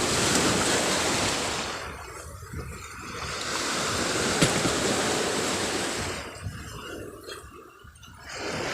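Sea water rushing and washing, a noise that swells and fades twice.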